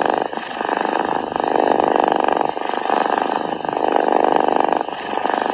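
A sleeping cat snoring, a buzzing rattle on each breath in and out, rising and falling about once a second.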